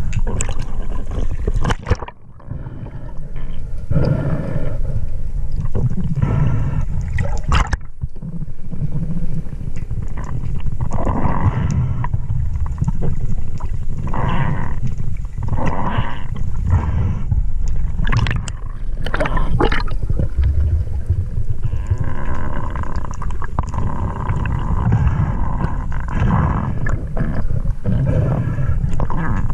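Water sloshing and gurgling over a steady low rumble, with rough breaths through a snorkel every couple of seconds.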